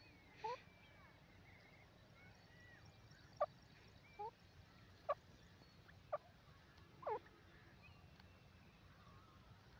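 Grey francolin giving about six short, sharp call notes at irregular intervals, the last a little longer than the rest.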